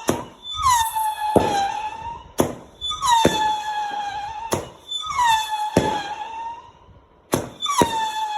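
A repeated howling whistle: each howl opens with a short downward slide, then holds one steady pitch for about a second and a half. The howls come roughly every two seconds, mixed with sharp knocks.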